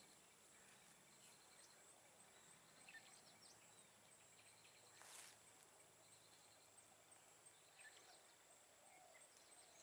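Near silence: faint outdoor ambience with a steady high insect drone and a few faint chirps.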